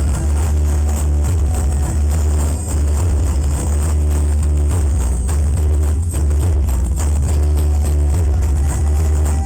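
Music played loud through a large carnival sound system, heavily dominated by deep, unbroken bass.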